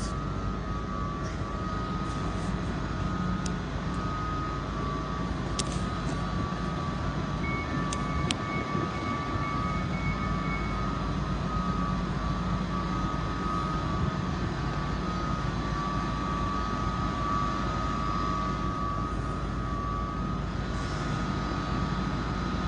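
Class 755 bi-mode train standing at the platform with its diesel power pack and cooling fans running: a steady drone with a high whine over it. A few sharp clicks sound in the first third.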